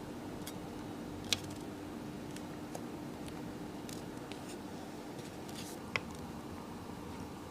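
Scattered small sharp clicks of watchmaker's tools against watch parts, two louder ones about a second in and about six seconds in, over a steady low hum.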